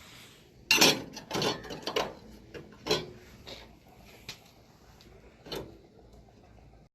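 A string of sharp knocks and clatters at uneven spacing, like hard objects or tools being picked up and set down, the loudest about a second in.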